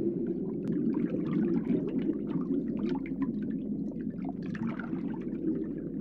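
Underwater water sound: a steady, muffled low rush with many small bubbling pops and gurgles.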